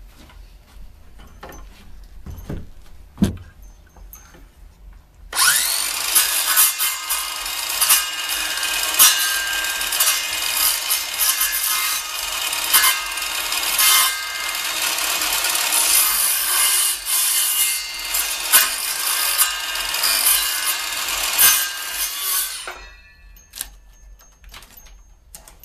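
Bosch circular saw running and cutting across a 2x4 leg, making shallow passes to clean out high spots in a notch. It starts about five seconds in, runs steadily for about seventeen seconds and stops abruptly. A few faint knocks come before it.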